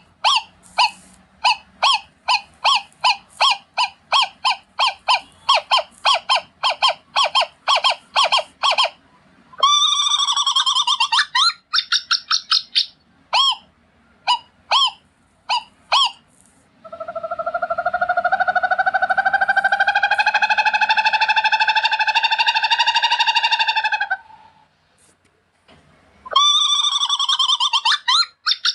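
Owl calls: a fast series of short, high-pitched notes about three a second, then a burst of chattering notes, then one long call held for about seven seconds that rises slightly in pitch, and another chattering burst near the end.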